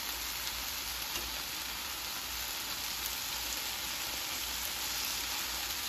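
Marinated chicken pieces sizzling steadily in a stainless steel frying pan, cooked through.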